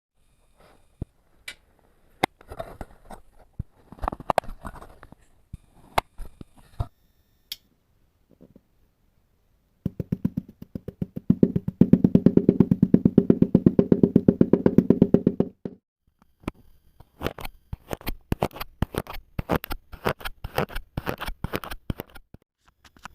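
Kinetic sand being cut and crushed with a knife: scattered crunches and sharp taps, then about six seconds of rapid chopping, around eight strikes a second, with a steady low ring, and dense quick crunchy cuts again near the end.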